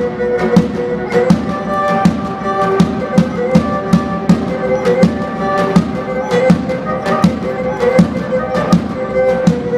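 Instrumental Pontic Greek dance music: a bowed Pontic lyra plays a steady melody over held drone notes, with a drum beat about every three-quarters of a second and sharp clicks on top.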